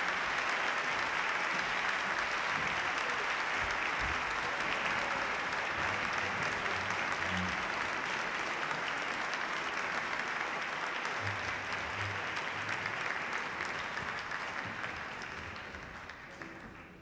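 Concert-hall audience applauding, a dense steady clapping that fades away over the last few seconds.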